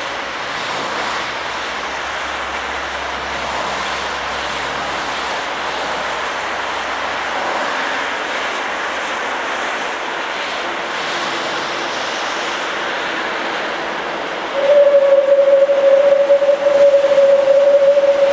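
Steam locomotive 433.002 approaching with its train, a steady rush of exhaust and steam. Near the end it sounds a single-note whistle blast lasting about four seconds, the loudest sound here.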